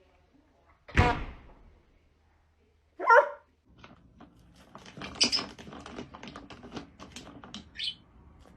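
A sudden thud, then a single short animal call about two seconds later, followed by a scatter of small clicks and scrapes.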